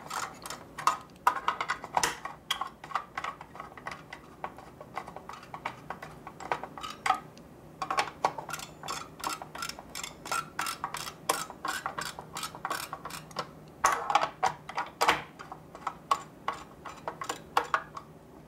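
Rapid, irregular clicking and ticking of a screwdriver tightening the CPU heatsink screws in a desktop PC case, over a faint steady low hum. The clicking thins out near the end.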